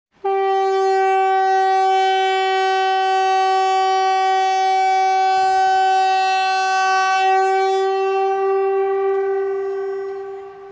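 Warning siren sounding one steady, unwavering alert tone, rich in overtones. It starts suddenly and fades away over the last few seconds.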